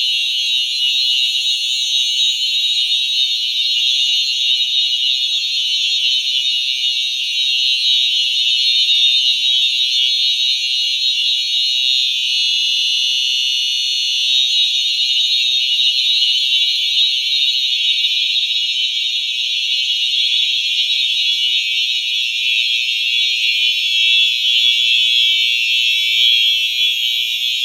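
Simplex fire alarm horn strobes, among them a 4903-9242 electronic horn strobe, sounding together in a steady, high-pitched electronic horn tone with no breaks.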